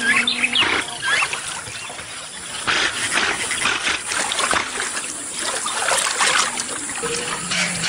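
Water sloshing and splashing in uneven surges as a jaguar wades into a river and swims.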